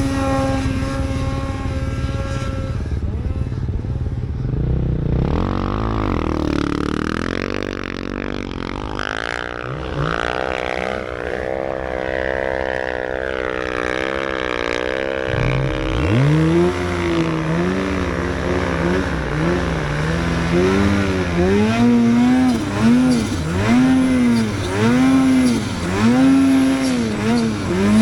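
Two-stroke snowmobile engines running and revving, their pitch steady at first and then wavering; in the second half an engine is revved up and down over and over, about once a second.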